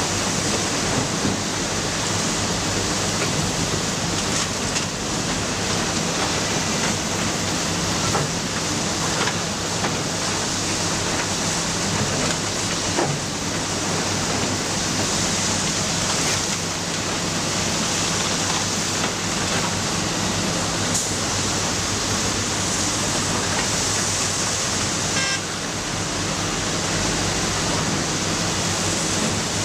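Matador ME315 excavator's diesel engine running steadily with a low hum under a broad hiss, with a few faint knocks.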